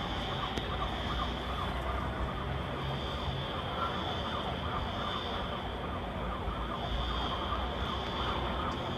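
Sirens wailing across a city, swelling and fading every few seconds over a dense, steady background noise.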